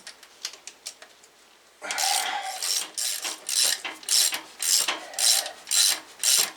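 Hand ratchet wrench clicking as it works an alternator mounting bolt to loosen the alternator. Faint quick clicks at first, then from about two seconds in, steady strokes of louder ratcheting, about two a second.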